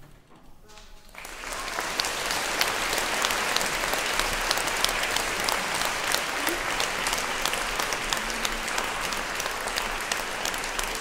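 Audience applauding, a dense steady clapping that starts about a second in after a brief hush.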